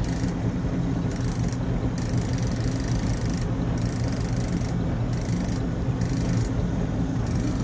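Boat motor running steadily at low trolling speed: an even, low hum.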